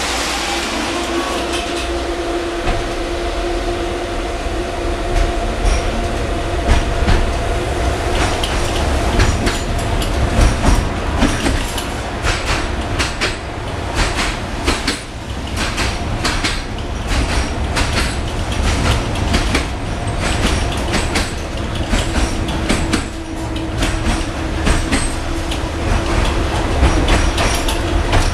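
Tatra T4D tram running, heard from inside the passenger car: a steady low rumble with a steady whine at the start and again near the end, and many sharp clacks of the wheels over rail joints and points, coming thickest through the middle.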